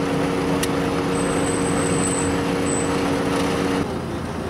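Steady hum of an idling vehicle, two even tones over a low rumble. Near the end the hum gives way to a quieter, lower rumble. A single short click comes about half a second in.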